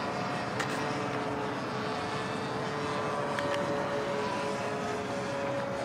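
RC aerobatic model plane's propeller droning steadily in flight, the pitch stepping slightly higher about halfway through.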